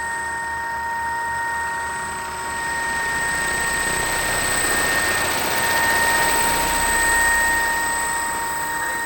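Electric-converted quarter-scale model Spitfire in flight: a steady, high electric-motor whine over propeller rush that swells to its loudest about six or seven seconds in, then eases off as it passes.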